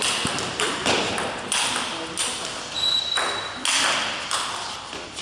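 Table tennis rally: sharp, evenly spaced clicks of the celluloid ball striking the rackets and bouncing on the table, each ringing on briefly in the hall. A short high squeak comes about three seconds in.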